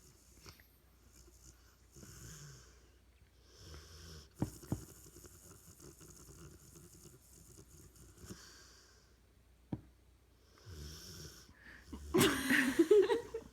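Sleeping dog snoring, a soft snore every few seconds, with a few small clicks in between. Near the end comes one much louder snore with a pitch that wavers up and down.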